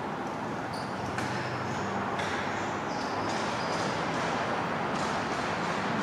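Wind blowing through an open sawmill shed, a steady rushing noise, with a few faint, short high-pitched squeaks.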